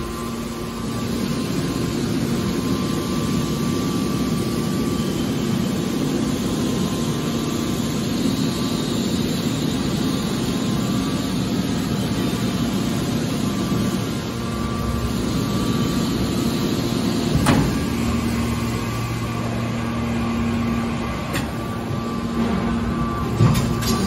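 Hydraulic scrap metal baler running: a steady hum from its motor and pump, with a sharp knock about two-thirds of the way through and another near the end.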